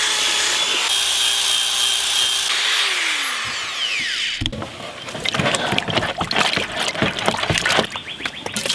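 Power drill spinning a wire brush attachment against rusty cast iron with a steady whine, then released so it winds down in pitch about three seconds in. After that comes a run of irregular knocks and clatter as the skillet is handled in a plastic tub of vinegar.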